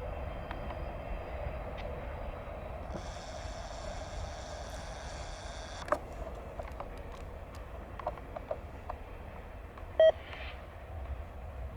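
A freight train's steady low rumble. A high whine runs for about three seconds and cuts off with a click, and about ten seconds in comes one short, loud electronic beep.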